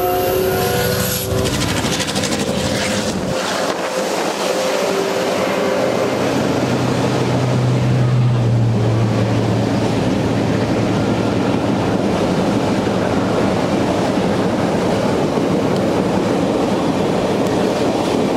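Passenger train cars rolling past on the track: a steady rumble and rattle of wheels and cars. There are a few short high squealing tones in the first five seconds, and a low hum swells between about seven and ten seconds.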